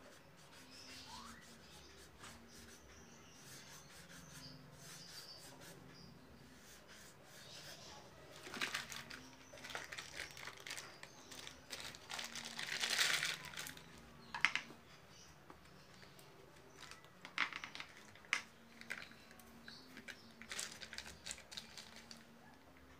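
Faint handling noises: rustling and crinkling with scattered sharp clicks, starting about eight seconds in, with a louder rustle about thirteen seconds in.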